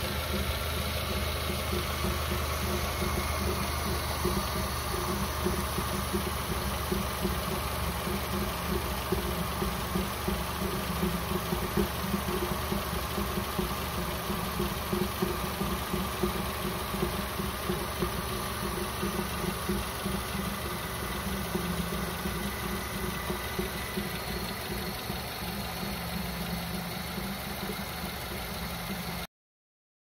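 Nissan Serena (PC24) engine idling with an abnormal bubbling noise from the intake system, like water boiling. The noise flutters irregularly over a steady engine hum, and the audio cuts off suddenly near the end.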